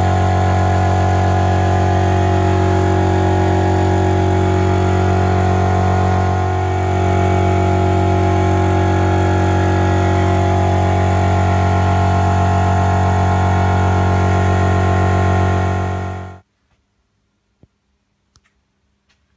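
Background music: a sustained, steady synthesizer drone that cuts off abruptly near the end, followed by a few faint ticks.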